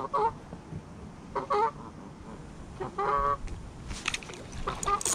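Geese honking across the water: three short calls, the third longer. A few sharp clicks follow near the end.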